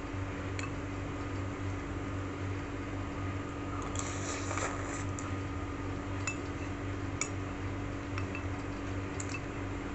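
Fork and spoon clicking and scraping against a bowl of noodles in scattered light clinks, with a short noisy slurp of noodles about four seconds in. A steady low hum runs underneath.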